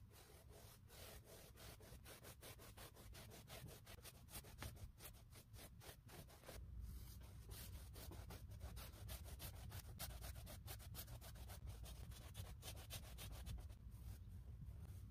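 Faint brushing of a wide flat bristle brush stroking varnish across a painted canvas, quick back-and-forth strokes several times a second, over a low steady hum.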